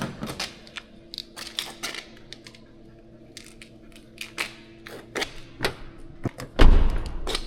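Irregular clicks and taps of something being handled, over a faint steady hum, with one heavy low thud near the end.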